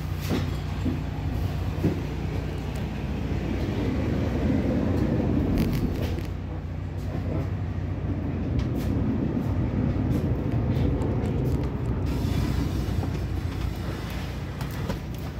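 Loaded pallet jack rolling over the wooden floor of a semi-trailer: a low, continuous rumble with scattered knocks and clicks, over a steady low hum.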